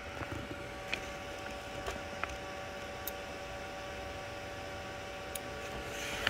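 Sovol SV02 3D printer during auto bed leveling: a steady electrical whine from its energized stepper motors over the hiss of its cooling fans, with a few sharp clicks scattered through.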